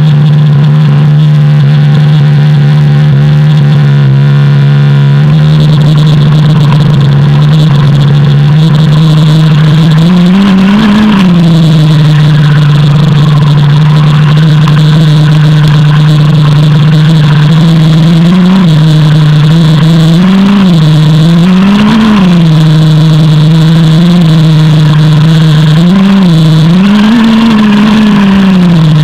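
FTX Frenzy nitro RC buggy's small glow-fuel two-stroke engine, very loud from a camera mounted on the car. It runs at a steady high buzz for about ten seconds, then surges up and drops back again and again as the throttle is worked while it drives.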